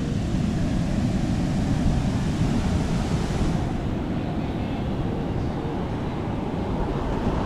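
Pacific surf breaking on a sandy beach, with gusts of wind rumbling on the microphone.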